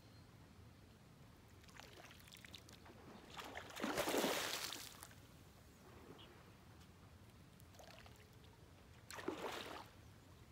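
Fish splashing at the water's surface around a float close to the bank: a louder splash about four seconds in and a shorter one near the end.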